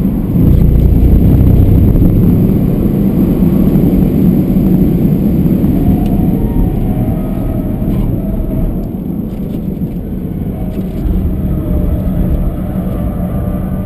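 BMW 320d's four-cylinder turbodiesel engine working hard at track pace, with heavy road and tyre noise, heard from inside the cabin. It jumps louder about half a second in and eases somewhat in the second half.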